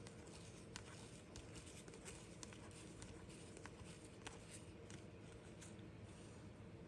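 Near silence, with faint soft clicks and rustles from hockey cards being flipped through by hand.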